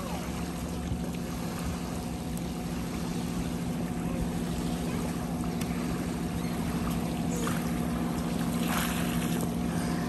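A motorboat's engine running with a steady hum that grows slightly louder, over a haze of wind and water.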